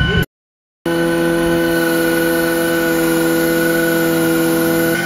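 Hydraulic pump driven from an electric truck's power take-off, running under test while its oil flow is measured, giving a steady whine made of several fixed tones. The sound drops out completely for about half a second near the start.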